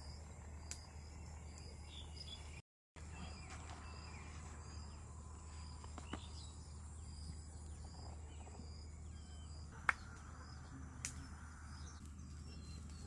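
Faint outdoor ambience: high chirps repeating every half second or so over a steady low hum, with a few sharp clicks, the loudest about ten seconds in. The sound briefly cuts out about three seconds in.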